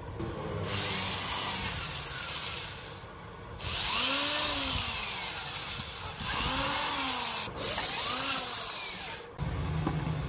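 Handheld electric drill boring into a wooden clock face, running in several stretches with short stops between them.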